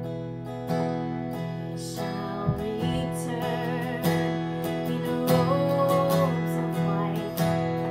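Steel-string acoustic guitar strummed in steady chords. A woman's singing voice comes in with the guitar about two and a half seconds in.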